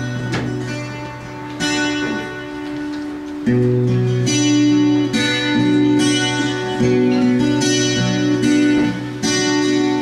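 Acoustic guitar strumming chords, changing chord every second or two: the instrumental opening of a song.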